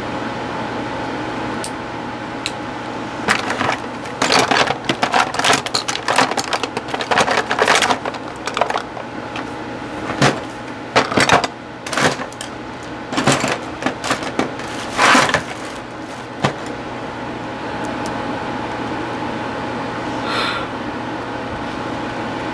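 Handling noise: a dense run of rustles, scrapes and clicks from someone moving and rummaging close to a clip-on microphone, lasting about thirteen seconds from a few seconds in. A steady hum runs underneath throughout.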